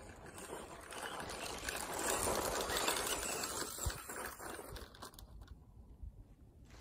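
Electric Tamiya Fast Attack Vehicle RC buggy driving past on loose dirt, its tyres scattering grit. The sound grows to its loudest two to three seconds in and fades away by about five seconds, with one low thump near four seconds.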